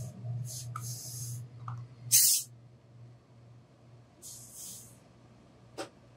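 Tailor's steam iron releasing short hisses of steam in several separate bursts, the loudest and longest about two seconds in. A low steady hum runs under the first half and fades out, and a sharp click comes near the end.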